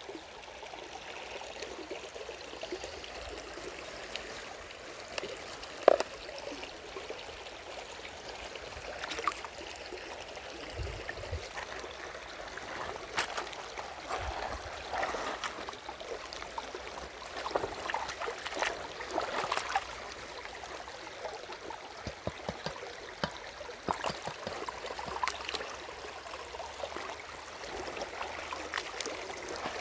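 Stream water at a waterfall running and trickling steadily, with scattered small splashes and clicks, and one sharp knock about six seconds in.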